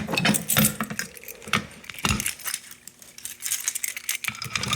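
A key ring jingling and small metal clicks and clinks as a Notifier fire alarm pull station is unlocked with its key and reset, with one heavier knock about two seconds in.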